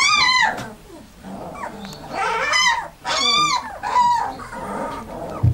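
Alaskan Malamute puppies yelping and whining as they play-fight: about four high-pitched squeals, each rising and falling in pitch, one right at the start and three more in quick succession a couple of seconds later.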